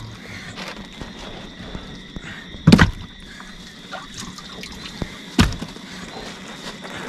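Caught fish being handled in a boat's fish box: two heavy thunks about three seconds apart, with light water sounds in between.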